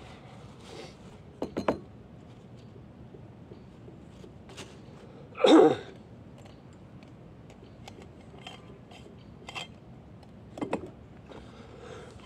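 Camping gear being unpacked and set down on a wooden plank table: a gas cartridge and metal cookware making scattered clinks, knocks and bag rustles, with one louder short sound about halfway through.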